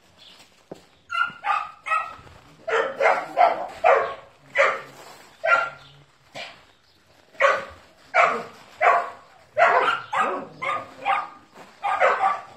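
Dog barking repeatedly: about twenty short, sharp barks in quick runs with brief pauses, starting about a second in.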